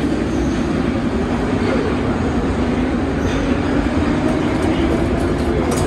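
Steady low rumble and hum of a metro train, heard from inside a car standing at the platform with its doors open. A few short sharp clicks come near the end.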